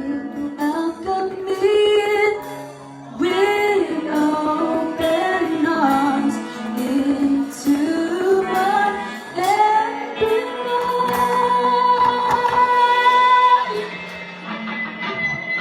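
A band playing while a woman sings the melody, holding one long note in the second half.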